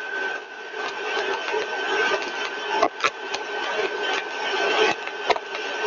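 Single-stage rotor–stator compressor rig running at about 80% of design speed: a steady rushing noise with a thin, steady high whine. A few sharp clicks come about halfway through and again near the end.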